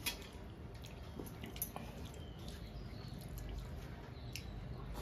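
Soft wet squishing of fingers mixing rice and mutton curry on metal plates, with a few small clicks.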